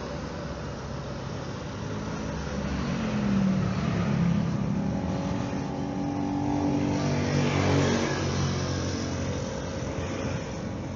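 Boeing 737-500 jet engines at takeoff power as the airliner lifts off and climbs away. The roar swells a couple of seconds in, peaks with several tones sliding steadily down in pitch as it passes, then eases off.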